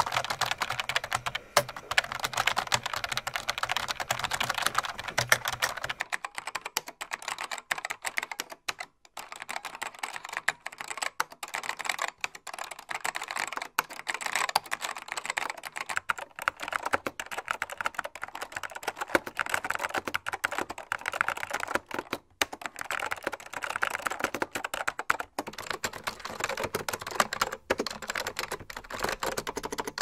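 Typing on a computer keyboard: a fast, irregular clatter of keystrokes with a couple of brief pauses. A low hum sits under the first few seconds and then stops.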